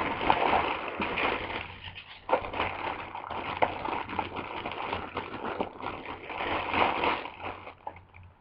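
A clear plastic bag rustling and crinkling as hands dig through it, with many small crackles and taps, dying away near the end.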